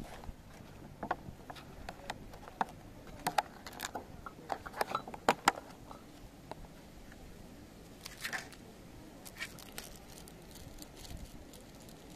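Clear plastic lid of a takeaway bento container being handled and lifted off: a quick run of sharp plastic clicks and crinkles, thickest in the first half and loudest about five seconds in, with a few more about eight seconds in.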